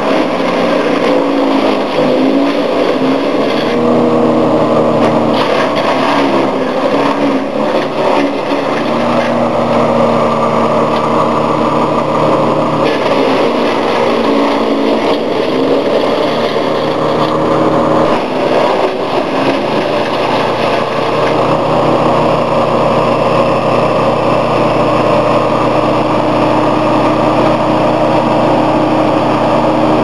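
Petrol engine of an agria 7500 wood chipper running steadily at working speed. Its note dips and recovers a few times, as the engine takes load while chipping.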